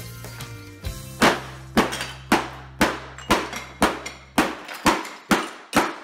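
Background music: evenly spaced percussive hits about twice a second over held low bass notes. The bass drops out about four and a half seconds in, and the music cuts off just before the end.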